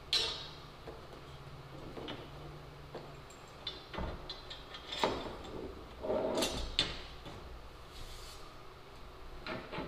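Steel barn door track handled against a wall while it is lined up for mounting: scattered knocks, clicks and scrapes of metal on the wall and hardware. The first knock comes right at the start, and a cluster follows about four to seven seconds in.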